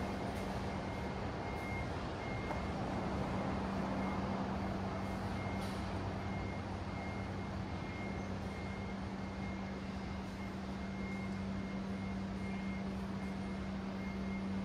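Street traffic noise with a heavy vehicle's engine running steadily as a low hum, and a high electronic beep repeating throughout, like a vehicle's reversing or warning alarm.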